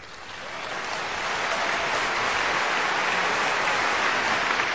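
Crowd applauding: a dense, steady clapping that swells up over the first couple of seconds and then holds.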